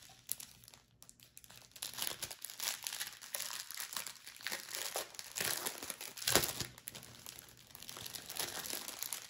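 Small plastic bags of diamond-painting special drills crinkling as they are handled. The crackling grows busier about two seconds in and is loudest around six seconds in.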